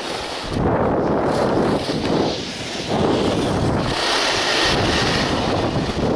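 Wind buffeting the microphone of a skier's camera during a downhill run, with the hiss of skis sliding on snow swelling and fading through the turns.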